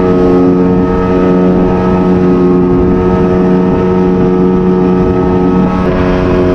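Motorboat engine running at a steady speed, a loud even drone with several held tones. It cuts in suddenly at the start.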